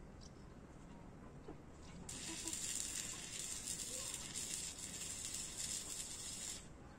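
A steady hiss starts abruptly about two seconds in and cuts off abruptly about four and a half seconds later.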